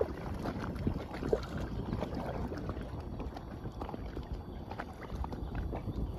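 Paddle strokes and small splashes of water lapping against the hull of an Intex Explorer K2 inflatable kayak as it moves across the bay, over a low wind rumble on the microphone.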